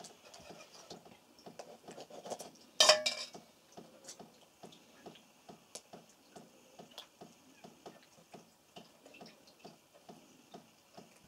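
Crucian carp handled by hand in an enamel basin while being gutted: a scatter of small wet clicks and knocks of fish against the enamel, with one louder knock about three seconds in.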